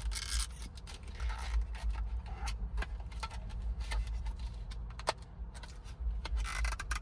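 Plastic wrapper of a squishy toy's blind package being picked at and peeled by hand: irregular crinkling, rubbing and scratching with scattered sharp clicks.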